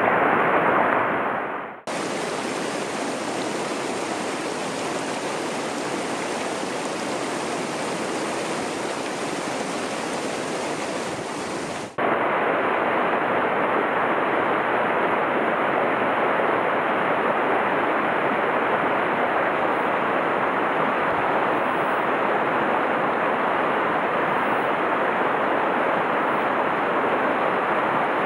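Rushing water of a rocky mountain stream running over rapids, a steady, even roar. The sound changes abruptly twice, about two and twelve seconds in, where the shot changes.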